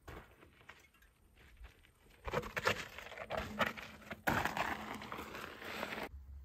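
Mountain unicycle tyre crunching and clicking over a rocky stone trail, starting about two seconds in and getting louder as it rolls closer, then cutting off suddenly near the end.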